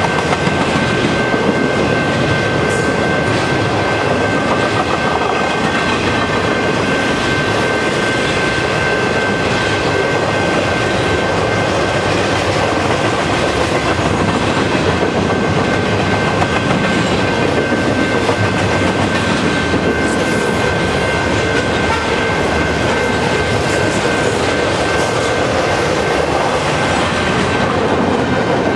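Double-stack container train rolling past: a steady loud rumble and clatter of the well cars' wheels on the rails, with a thin steady high whine running through it.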